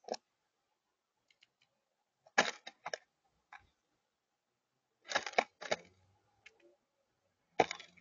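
Blue jay pecking at seeds on a hard feeder table: irregular sharp taps, some single and some in quick runs of two to four, with the loudest near the middle and one near the end.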